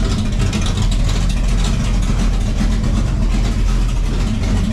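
1969 Dodge Charger engine running steadily, loud and close, with a fast, even exhaust pulse.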